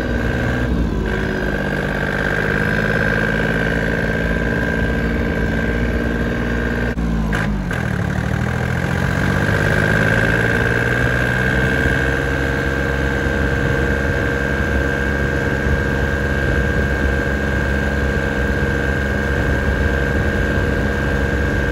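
John Deere 770 compact tractor's three-cylinder diesel engine running steadily while driving along. The engine note drops briefly about a second in and again around seven seconds, then climbs back over the next few seconds. A steady high whine rides along with it.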